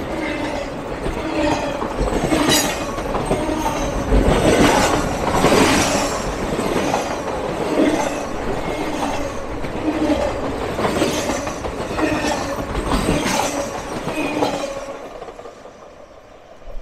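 Triple Crown RoadRailer intermodal trailers on rail bogies rolling past close by, the wheels rumbling and clanking irregularly on the rails. The sound fades near the end as the last trailer passes and moves away.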